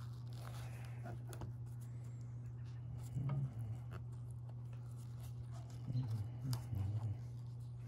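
Faint water sloshing and light handling noises as a cloth-wrapped iron pipe end is moved about in a plastic gold pan of water, swelling briefly about three seconds in and again about six seconds in, over a steady low hum.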